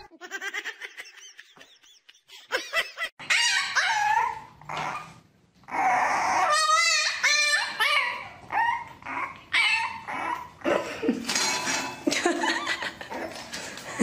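After a quiet start, a puppy gives a run of short vocal calls that rise and fall in pitch, with one wavering call about halfway through.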